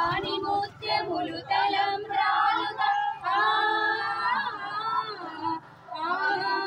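A group of women singing a devotional song together in long, held notes, with a brief pause near the end.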